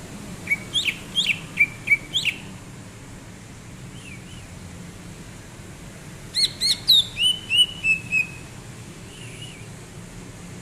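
A green leafbird (cucak ijo) singing in two bursts of quick, sharp whistled notes that sweep up and down, the first shortly after the start and the second about six seconds in, with a few soft notes between. A steady low hum runs underneath.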